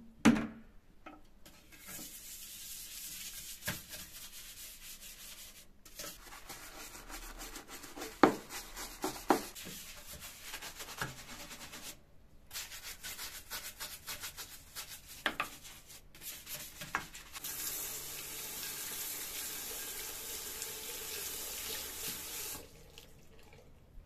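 Scrubbing a white ceramic bathroom sink coated in cleaner: a steady hissing rub in long stretches with short breaks, louder near the end, with scattered knocks and taps against the basin.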